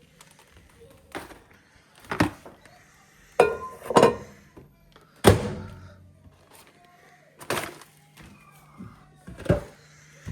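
Popcorn popping in a running microwave: single loud pops at irregular intervals about a second apart, over the oven's steady low hum, which stops near the end.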